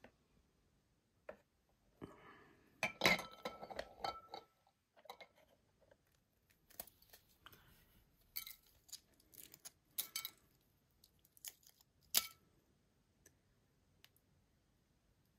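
Boiled eggs handled on a ceramic plate: a cluster of knocks with a short ringing clink about two to four seconds in, then scattered small crackles and taps as the eggshell is cracked and peeled off by hand.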